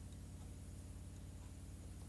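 Faint, steady low hum with no other sound.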